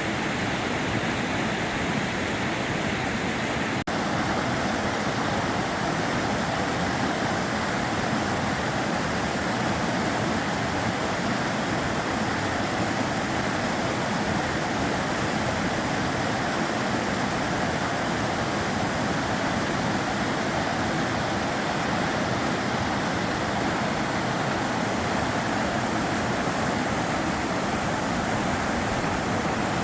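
The Sava River flowing: a steady, even rush of water with no breaks.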